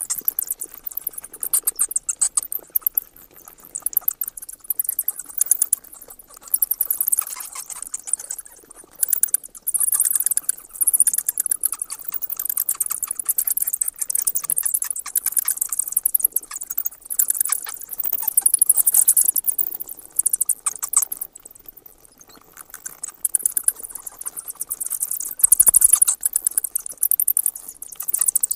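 Bats chittering and squeaking in rapid, high-pitched bursts that swell and fade, with a brief lull about three-quarters of the way through.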